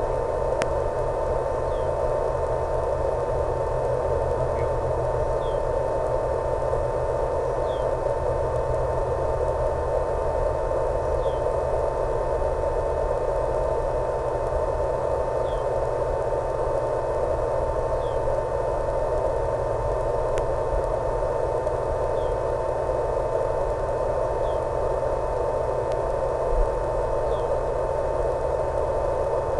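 Steady radio static with a constant thin tone: the hiss of an analog 1.3 GHz FPV video receiver's audio channel.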